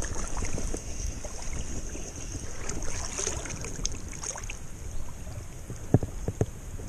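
Wind buffeting the microphone over the sound of river water, with a steady high hiss and three short soft knocks about six seconds in.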